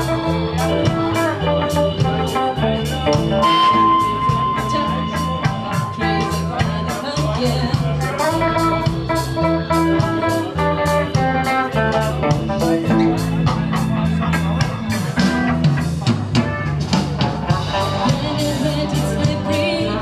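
Live rock band playing: electric guitar and bass guitar over a steady beat, with a woman singing into a microphone at times.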